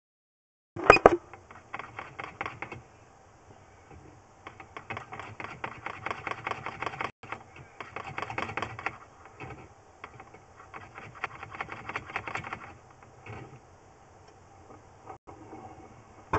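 Drain inspection camera and push rod rattling as they are pushed and pulled through the pipe, heard as several spells of rapid clicking a second or two long, with a loud knock about a second in.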